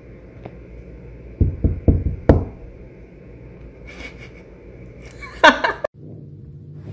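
Four sharp knocks in quick succession about a second and a half in, then near the end a short cat meow that falls in pitch.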